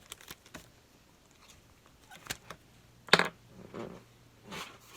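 Handling noises of a new table tennis rubber sheet and its packaging: a few short rustles and scrapes, the loudest and sharpest about three seconds in.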